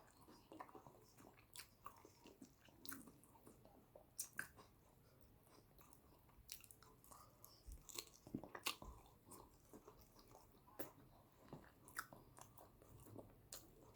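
Faint, close-miked chewing of yam with eggplant sauce: soft, sticky mouth clicks and smacks scattered irregularly, with a denser run of them a little past the middle.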